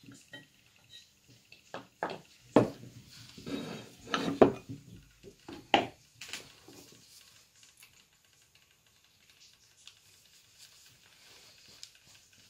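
Metal knocks and clinks of a hinged metal casting mould being handled and cast fishing sinkers being set down on a wooden table: a cluster of sharp strikes with some scraping in the first six seconds, the loudest about four and a half seconds in, then little more.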